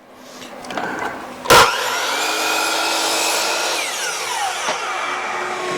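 Electric power saw cutting across a 1x10 wooden board: a steady motor whine mixed with sawing noise. There is a sharp knock about a second and a half in.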